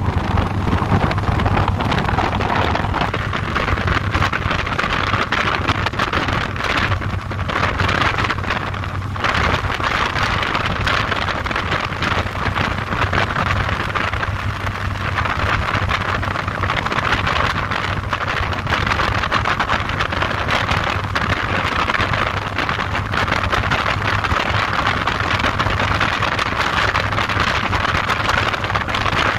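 Cruiser motorcycle riding at steady speed: the engine runs with an even low hum under heavy wind noise on the microphone.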